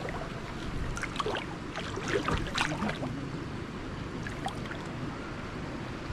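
Steady water or rain noise, with a cluster of knocks and splashes about one to three seconds in.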